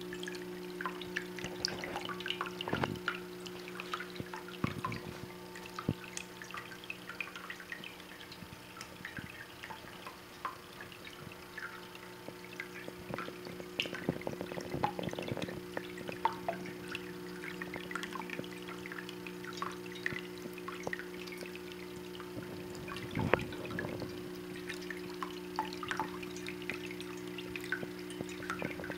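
Tabletop copper fountain running: water trickling down from copper leaf to leaf into its basin, a constant patter of small, irregular drips and splashes over a steady low hum.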